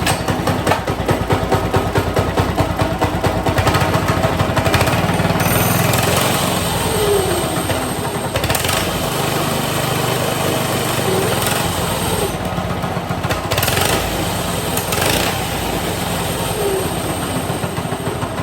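A 98cc, 3.5 hp single-cylinder horizontal-shaft engine on a mini bike runs steadily on its very first start after assembly.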